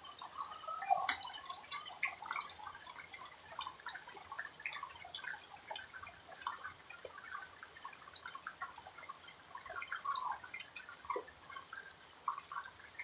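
Water dripping in many small, irregular plinks.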